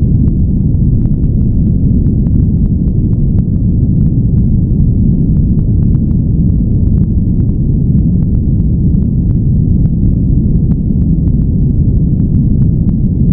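Steady, loud noise track, deep and muffled rather than hissy, with faint scattered clicks; it is the noise bed that masks the affirmations of a subliminal recording.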